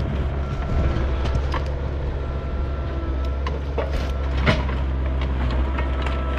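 Kubota excavator's diesel engine running steadily, with scattered metal clanks and knocks, a louder clank about four and a half seconds in, and a thin high whine that comes and goes.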